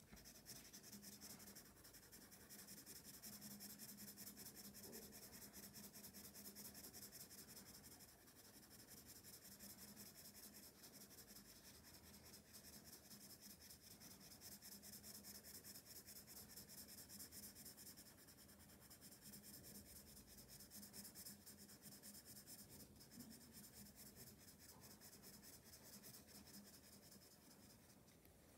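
Colored pencil shading on drawing paper: faint, quick back-and-forth strokes of the lead scratching across the paper, steady and even, several a second.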